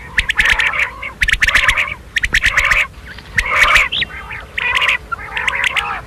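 Common quail calling: short bursts of rapid, clicking chatter, each under a second long, following one another with brief pauses.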